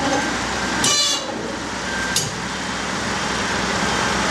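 Heavy diesel engine running steadily, with a short high-pitched squeal about a second in and a sharp click a second later.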